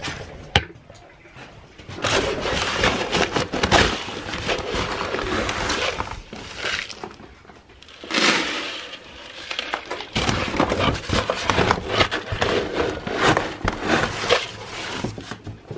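Chicken scratch grain scooped from a feed sack with a cut-down plastic jug and poured into a plastic bucket: dry grain rattling and pouring in three long spells, with short breaks about seven and ten seconds in.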